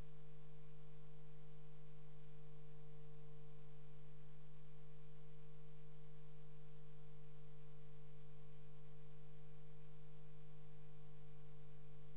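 Steady electrical hum with no other sound, a low buzz and a higher overtone held without change.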